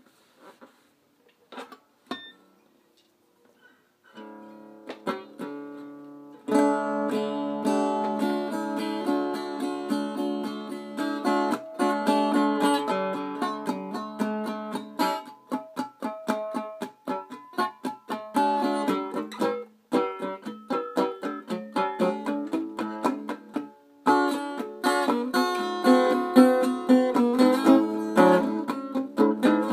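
Acoustic guitar: a few soft single plucks at first, then strummed chords starting about four seconds in. The strumming gets louder a couple of seconds later and carries on, with a brief pause near the end.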